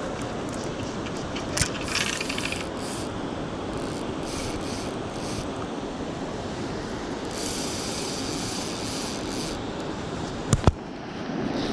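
Fly reel's ratcheting drag buzzing in spurts as a hooked spring salmon pulls line off it, over a steady rush of river water. Two sharp knocks come near the end.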